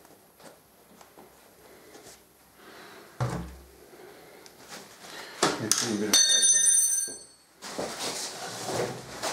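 Workshop handling noises: a single knock about three seconds in, then a spell of clattering with a brief high, ringing metallic squeal around six seconds in.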